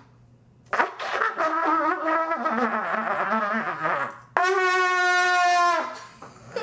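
Two trumpets blown by unskilled beginners: about a second in, an unsteady tangle of wobbling notes for some three seconds, then one loud held note for about a second and a half that sags in pitch as it ends.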